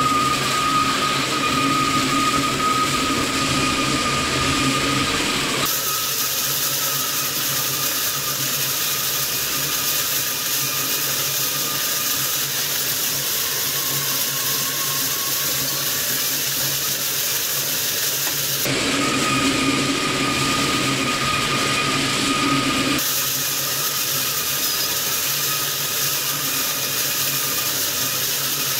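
Twin-shaft industrial shredder running steadily as its rotating cutter discs tear through kitchen aluminium foil. The machine hum carries a steady high whine that drops out abruptly and returns a couple of times, giving way to a brighter hiss.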